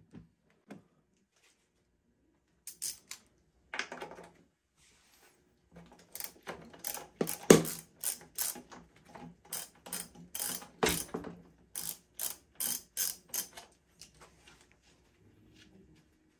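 Ratchet wrench worked in short strokes: a run of sharp clicks about two a second, with a few single clicks before it, as the fuel tank's mounting hardware is undone on a 1974 Yamaha DT360A.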